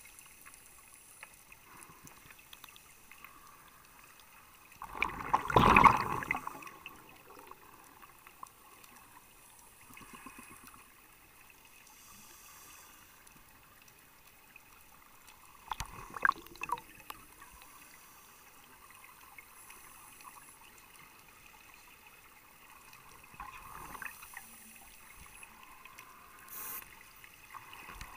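Scuba diver exhaling through a regulator underwater: bubbles rush out in three bursts about ten seconds apart, the first the loudest, over a faint steady underwater hiss.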